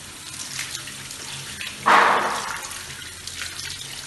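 Water running from a faucet into a sculpted granite sink while hands are rubbed and rinsed under the stream, with small splashes and one sudden louder splash about two seconds in.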